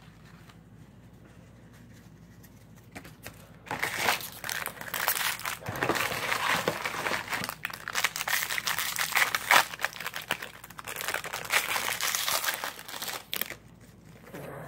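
The wrapper of a Topps Series 1 baseball card pack being torn open and crinkled by hand. A dense run of crackling starts about four seconds in, pauses briefly a couple of times, and stops shortly before the end.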